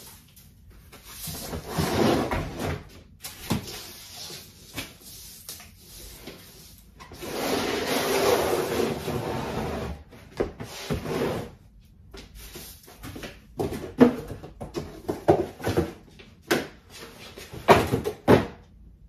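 Broom swishing across a floor in two longer bouts of strokes, then a run of short knocks and clatters as cardboard boxes and plastic containers are handled and set down on a plastic laundry basket.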